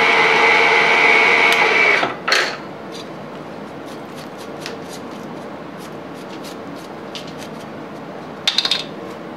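Milling machine end mill cutting a slot in a small metal part, a loud steady pitched whine with several tones, which stops about two seconds in with a sharp noise. The machine then runs more quietly while a brush sweeps chips off the vise, with light ticks of flying chips and a short clatter near the end.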